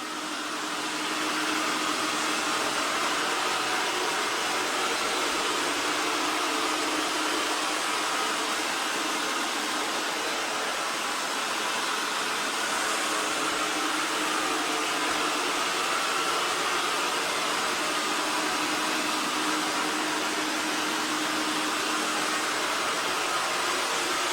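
Robot vacuum's suction motor running while it cleans: a steady rushing noise with a faint hum. It grows louder over the first second or two.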